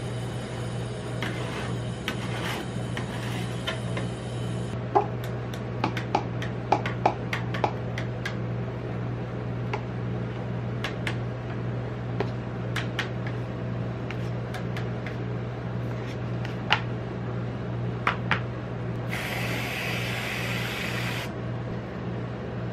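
A metal spatula scrapes and taps on a steel rolled-ice-cream cold plate, with sharp clicks as the rolls are lifted and set into a paper cup. Near the end an aerosol can of whipped cream hisses for about two seconds. A steady low hum runs underneath.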